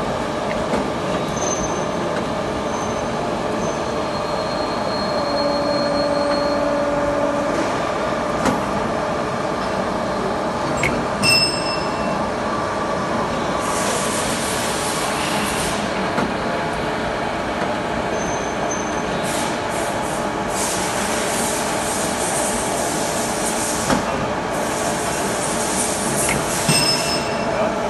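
WEEREN DH20 end finishing machine running as it works hex bolts: a steady mechanical hum with a few sharp knocks and brief whines. From about halfway through, several stretches of hissing come and go.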